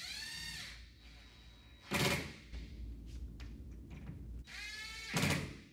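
Cordless drill driving screws to fasten a metal wall cleat: the motor whine rises as it spins up, and two brief, loud bursts come about two seconds in and near the end as the screws are run down tight.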